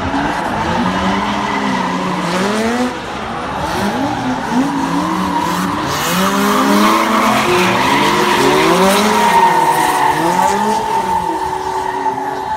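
Several drift cars sliding together, their engines revving up and down on and off the throttle in overlapping waves over a steady squeal of tyres sliding on asphalt. It gets louder about halfway through as the cars slide past close by.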